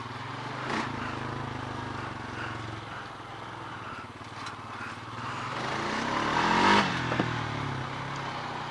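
A Honda off-road machine's engine running while being ridden. It revs up about five seconds in, peaks near seven seconds, then eases back off.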